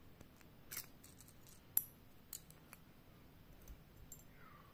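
Faint, scattered light metallic clicks and ticks of small sewing-machine parts being handled and fitted back, with one sharper click near the middle.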